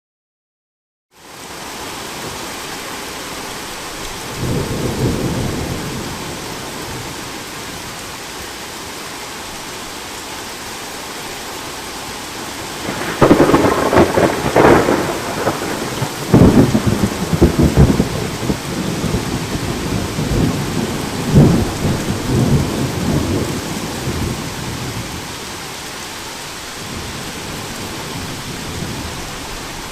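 Steady rain of a thunderstorm, starting about a second in. A low rumble of distant thunder comes about four seconds in. Then a loud crack of thunder about 13 seconds in rolls on in several rumbles for about ten seconds before the rain is left alone again.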